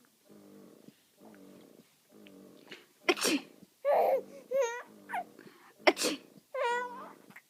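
A person sneezes twice, about three seconds in and again near six seconds, and each sneeze is followed by a baby's high, wavering laugh. Before the first sneeze there are only soft short sounds about once a second.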